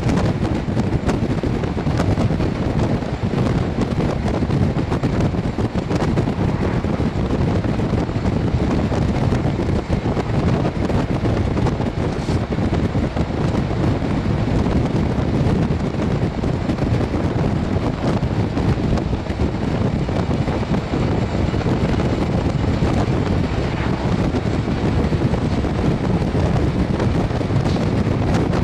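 Steady rush of wind buffeting the microphone, with road noise from a vehicle driving at speed alongside the train.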